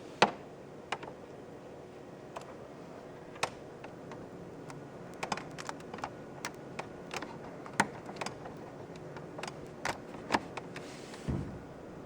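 Irregular sharp plastic clicks and light knocks as an HDMI smart TV stick and its cable are handled and fitted into the ports at the back of a television, with a duller thump near the end.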